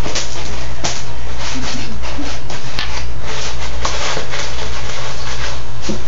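A puppy rolling and digging in clay cat litter: granules scraping and rustling against a plastic litter box in quick scratchy strokes, over a steady low hum.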